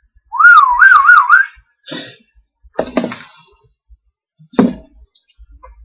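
A man whistling one warbling note that wavers up and down about three times a second, siren-like, for about a second, then a few brief, quieter sounds.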